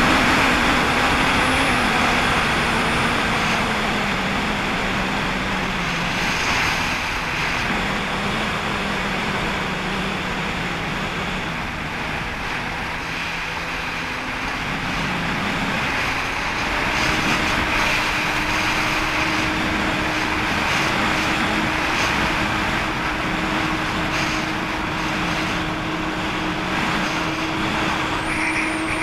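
Jet ski engine running under way, over a steady hiss of water and wind. The engine note sinks over the first few seconds, runs lower for a while, then climbs about halfway through and holds steady.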